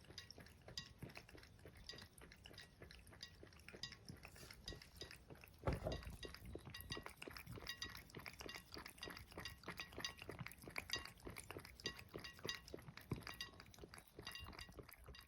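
A cat lapping water with its tongue: a long run of small, wet clicks at about four a second. One soft thump stands out about six seconds in.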